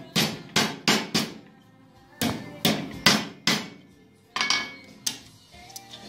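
Hammer blows on a stainless steel buckle blank clamped in a steel bench vise: about ten sharp metallic strikes with a brief ring, in short runs of three or four.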